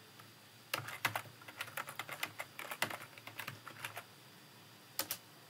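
Typing on a computer keyboard: a run of quick keystrokes starting under a second in and stopping about four seconds in, then a couple more keystrokes near the end.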